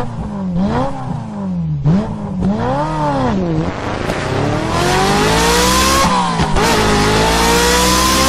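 Ferrari engine revved in two quick rises and falls, then accelerating hard with its pitch climbing steadily, dropping briefly at a gear change about six seconds in and climbing again. A steady low drone runs underneath.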